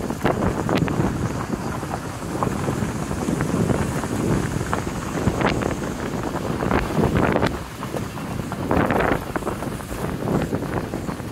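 Suzuki SX4 driving down a loose gravel track: tyres crunching and stones popping and knocking irregularly under the car, with wind buffeting the microphone.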